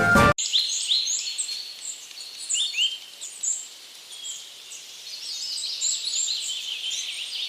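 Many small birds chirping and twittering: a quick run of short, high, slurred chirps from several birds at once, growing denser near the end.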